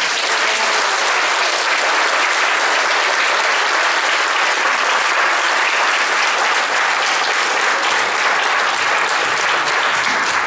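Audience applauding, a dense and steady clapping that starts as the music ends.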